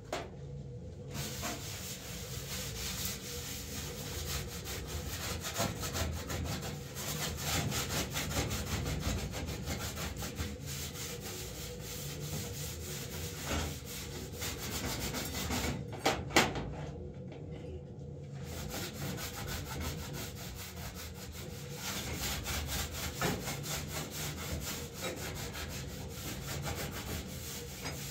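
Quick, continuous scraping and rubbing strokes by hand at a stovetop, with a short pause and a couple of sharp clicks about two-thirds of the way through.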